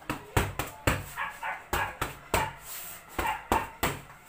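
Boxing gloves slapping against focus mitts in quick punch combinations: about ten sharp smacks in an uneven rhythm, with short vocal sounds after some of the strikes.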